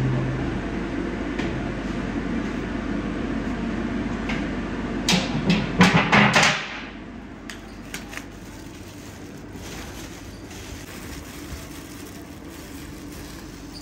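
A large steel basin being set as a lid on a cast-iron kazan clanks and scrapes against the rim several times, loudest about five to six and a half seconds in, over a steady rushing background. The rushing then stops abruptly, leaving quieter room noise with a few light clicks.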